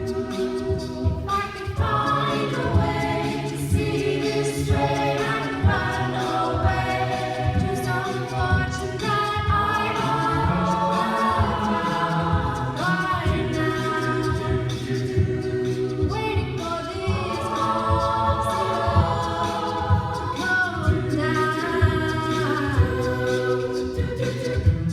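An a cappella group singing, several voices together with no instruments, over a steady beat of short low thumps.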